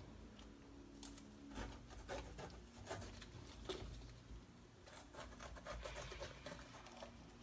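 Kitchen knife cutting bell peppers: faint, irregular taps and scrapes of the blade slicing through the flesh.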